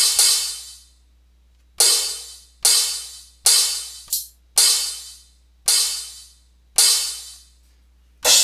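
A hi-hat sample triggered by hand from a Maschine drum-pad controller, struck about nine times roughly a second apart, each hit ringing and fading out within a second. It plays through a high-pass filter, so it sounds thin with little low end.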